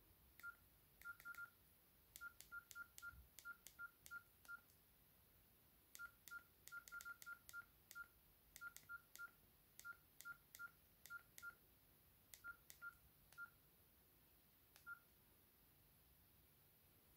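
Nokia 6700 Slide keypad tones: a long run of short, same-pitched beeps, each with a click, as the navigation key is pressed repeatedly to scroll through the phone's menus, at irregular intervals of up to a few a second. The beeps stop near the end.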